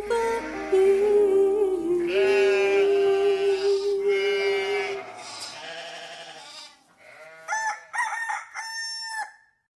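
A woman's sung final note, held long over backing music, fades out. Near the end a sheep bleats three times in short wavering calls.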